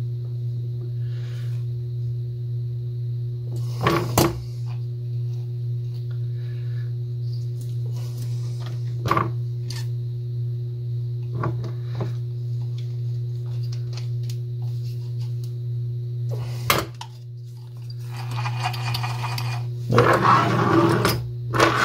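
Pliers clicking and clinking against the metal handle of a vintage spincast fishing reel as the over-bent handle is bent back, a few sharp metal clicks several seconds apart over a steady low hum, with rustling handling noise near the end.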